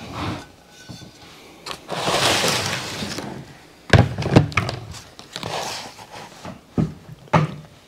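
Ceramic dinner plates handled and set down on a table: a longer scraping noise about two seconds in, then several sharp knocks, two of them close together about four seconds in and more near the end.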